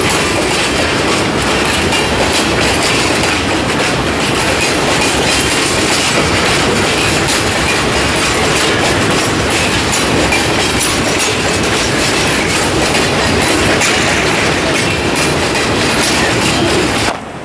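Freight car steel wheels rolling past close up on the rail: a loud, steady rumble and clatter with scattered clicks, which cuts off suddenly near the end.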